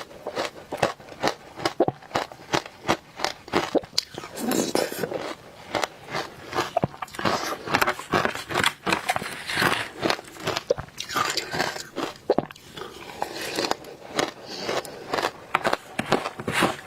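Frozen matcha ice being bitten and chewed: a quick run of sharp crunches, several a second.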